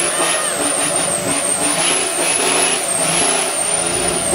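Engine of a big-turbo inline-six pickup truck running hard, with a loud high turbo whistle that wavers up and down in pitch.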